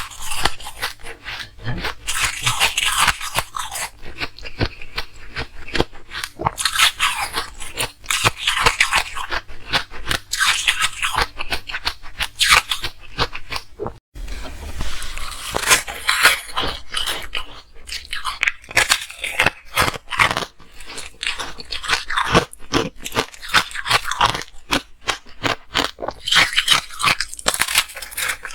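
Ice being bitten and chewed close to the microphone: dense, irregular crunching and crackling, with a momentary break about halfway.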